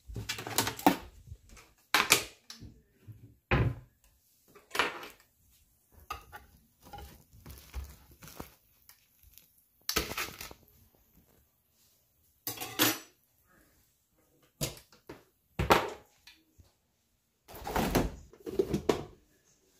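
Kitchen handling noises: a run of separate clunks and clatters as dishes are taken from a cabinet and bottles and jars are pulled from a refrigerator door shelf, with short quiet gaps between.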